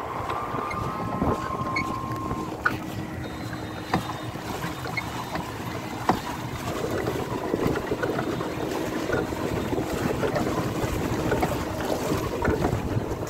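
Wind buffeting the microphone and water splashing against the hull of a small boat moving across a lake, with a few sharp knocks and a faint steady hum underneath.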